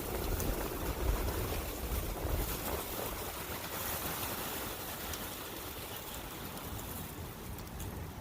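Forest ambience: wind gusting with the steady rushing of a brook, the low wind rumble stronger in the first few seconds and easing after.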